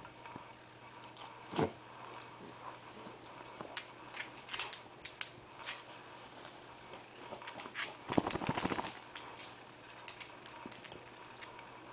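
Dachshunds moving about in a fabric dog igloo, with scattered light clicks and rustles of claws and bodies. About eight seconds in comes a burst of quick flapping lasting under a second, a dachshund shaking itself off.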